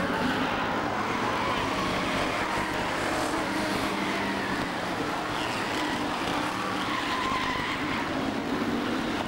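Engines of a pack of winged stock cars racing together at a steady level, their pitches rising and falling, with tyres squealing at times.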